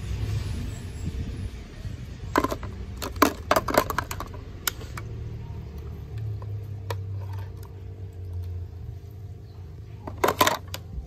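Hard plastic toys clicking and clattering against each other: a cluster of sharp knocks between about two and five seconds in, and another quick pair near the end as a toy fish drops into a plastic bucket.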